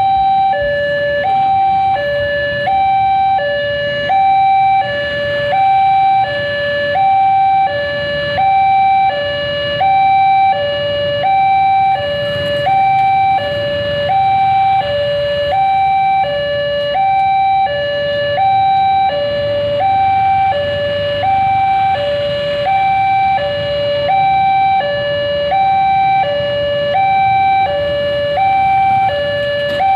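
Railway level-crossing warning alarm: an electronic two-tone signal alternating steadily between a higher and a lower note, about one high-low pair a second, warning that a train is approaching while the barriers are down. Road traffic idles underneath.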